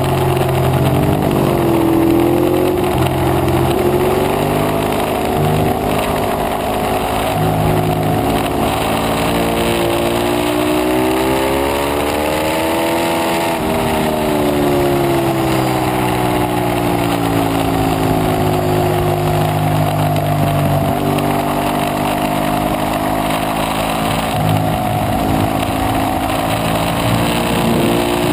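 Ducati 848 Evo's L-twin engine under hard acceleration on a track, heard from the bike itself: the engine note climbs for about thirteen seconds as the bike pulls down a straight, then falls away over several seconds as it slows for the next corner and levels off. Wind rush runs underneath.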